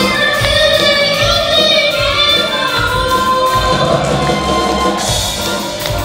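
Live amplified band music: several girls singing together into microphones over keyboards, electric guitars and a drum kit keeping a steady beat.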